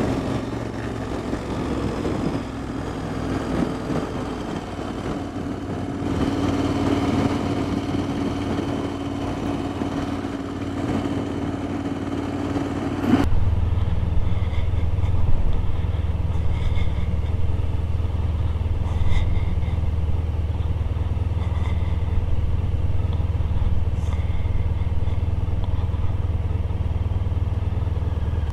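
Motorcycle engine running steadily at cruising speed, with wind and road noise. About 13 seconds in, the sound changes suddenly to a deeper, slightly louder drone that holds steady.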